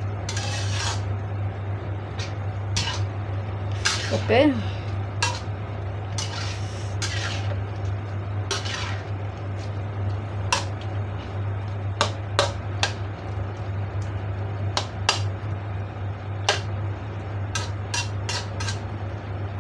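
Slotted metal spatula scraping and clanking against a wok while stirring a thick, saucy stir-fry, in irregular strokes, over a steady low hum.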